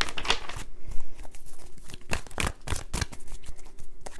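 A deck of tarot cards being shuffled and handled by hand: a run of quick, irregular card strokes and snaps, several a second.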